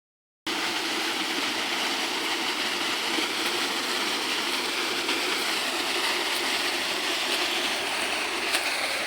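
Tall waterfall's falling water rushing in a steady, even roar, starting abruptly about half a second in.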